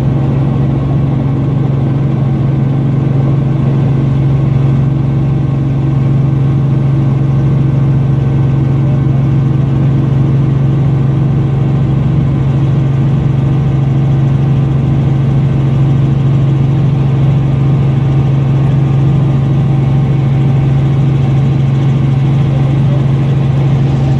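Robinson R44 Raven I helicopter's piston engine and rotor drivetrain running steadily, heard from inside the cabin: a loud, unchanging drone with a strong low hum and a stack of even tones above it.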